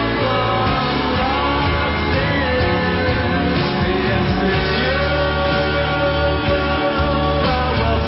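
Rock song playing: a band with guitar, with a voice singing over it.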